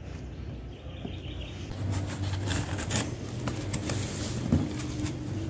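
Utility knife slicing through packing tape on a cardboard shipping box, with crackling tape and scraping cardboard as the flaps are pulled open. A rapid run of short scrapes and crackles starts about two seconds in.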